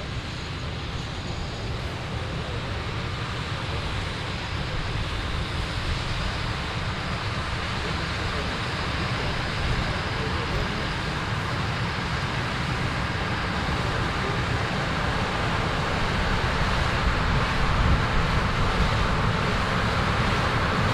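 Corn-harvesting machinery, a combine and tractors, running steadily in the field. The steady engine and machine noise grows gradually louder, as if the machines are drawing nearer.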